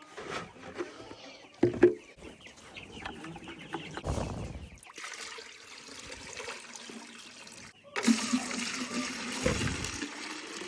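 Water pouring and splashing into a container, louder in the last few seconds, with chickens clucking around it. A few knocks of handling come earlier.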